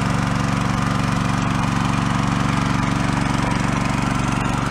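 Small petrol engine of a motor pump running steadily at constant speed, driving the pump as it draws water and silt up through a hose from under the pond ice.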